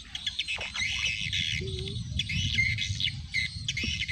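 Birds calling in a quick run of short, arching high chirps, over a low rumble.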